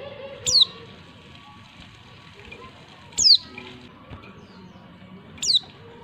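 Female white-eye (pleci) calling: three short, high notes, each sliding steeply down in pitch, spaced two to three seconds apart.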